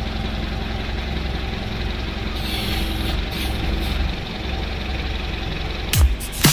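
Crane's diesel engine running steadily, heard from inside the cab, with a hiss about two and a half seconds in. Near the end, sharp hits with falling booms begin.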